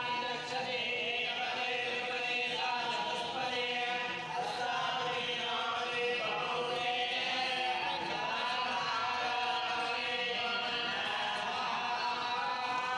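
Hindu priests chanting puja mantras together in unison: a continuous, droning chant on held pitches.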